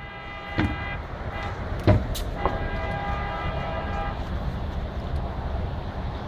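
A horn sounds two long blasts about a second and a half apart, each steady and cut off sharply, over a constant low outdoor rumble; a couple of sharp knocks fall between them.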